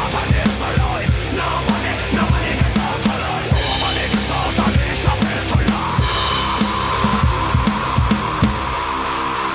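Heavy rock backing track with a drum part played on a NUX DM-210 electronic drum kit's built-in sounds: a steady kick and snare beat, with cymbal crashes about three and a half and six seconds in.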